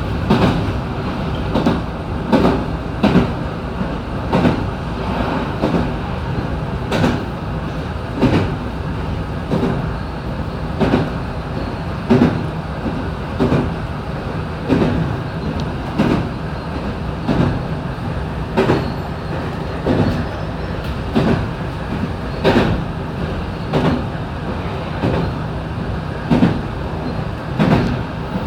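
Electric commuter train running at steady speed, heard from inside the front car: a continuous running rumble with the wheels knocking over rail joints at an even rhythm, about one knock every second and a bit.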